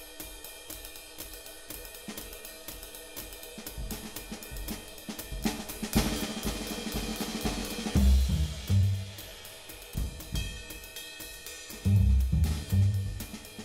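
Intro theme music with a drum-kit beat: evenly spaced hi-hat ticks throughout, joined by heavy bass-drum and bass hits about eight seconds in.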